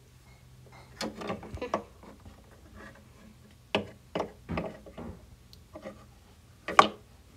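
Toy dolls and dollhouse pieces being handled and set down: a string of light clicks and knocks at uneven intervals, the loudest near the end.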